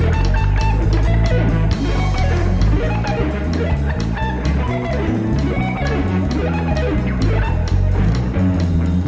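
Instrumental band music: electric guitar playing over bass guitar and a drum kit, with a steady beat.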